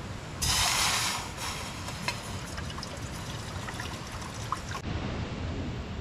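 Plastic soft-drink bottle twisted open: a sharp hiss of escaping gas about half a second in, then a few seconds of fizzing with small crackles and clicks that cuts off suddenly near the end.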